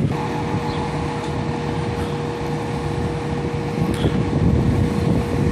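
Fire engine's diesel engine running steadily in the firehouse bay, with a steady whining tone held over the engine noise.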